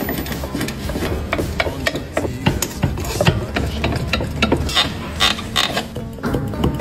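Hand tools working on a car: a rapid, irregular series of sharp metal clicks and knocks over a low background rumble.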